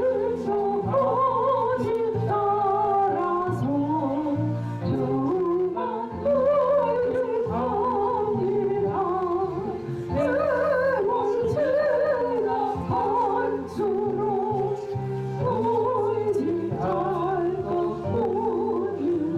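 A woman singing a Korean Christian praise song with wide vibrato over instrumental accompaniment with sustained low notes.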